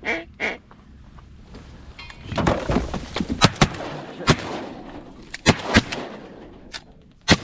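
A string of about six shotgun shots fired at ducks, spread over roughly four seconds and starting about three seconds in, after a burst of rustling noise.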